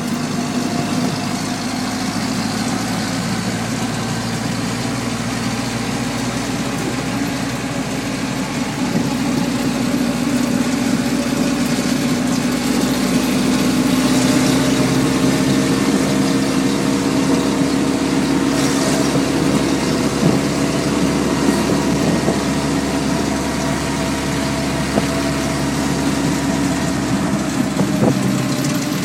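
A 1945 Willys MB jeep's four-cylinder flathead engine running as the jeep drives along, heard from the driver's seat. The engine gets louder about nine seconds in, then its pitch slowly falls off.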